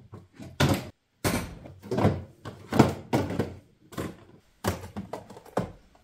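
A quick, irregular series of thunks and knocks, about two a second, as grocery packages and containers are set down on pantry shelves while the shopping is put away.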